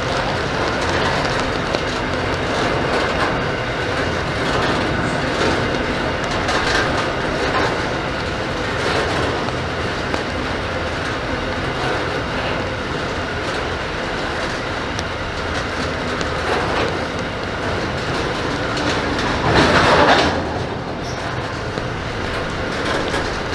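Freight train wagons loaded with open-top containers rolling steadily past at close range, wheels clicking over the rail joints, with a brief louder rush about twenty seconds in.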